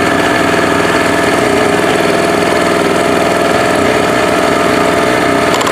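Small Harbor Freight portable generator's gasoline engine running steadily at a constant speed, freshly restarted after sitting unused for about a year.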